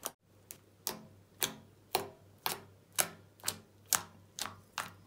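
Homemade purple glue slime being pressed and poked with the fingers, making sharp popping clicks about twice a second, evenly spaced, as trapped air bursts: the 'click test' of how clicky the slime is.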